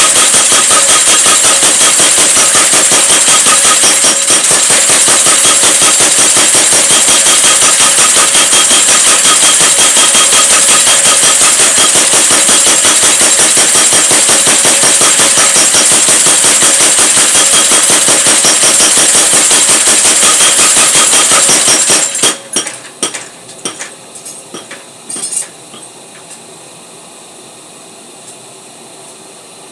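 Power hammer pounding metal in rapid, even strokes, with a metallic ringing. It stops suddenly about three-quarters of the way in, followed by a few separate knocks and then a steady quieter hum.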